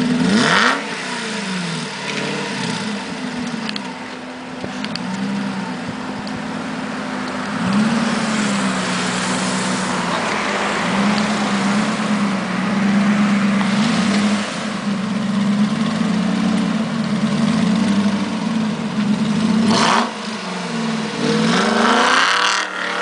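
Aston Martin AMV8 Vantage's 5.3-litre V8, straight-piped exhaust, idling and being blipped again and again, the engine note rising and dropping back every couple of seconds. Two sharper, higher revs stand out, one about half a second in and one near the end.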